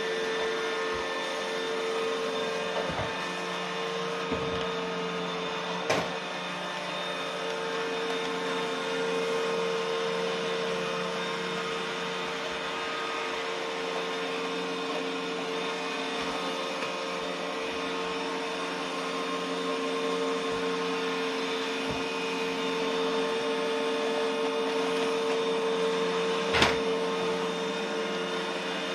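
Roomba robot vacuum running with a steady whirring hum and a held whine. Two sharp knocks sound, about six seconds in and again near the end.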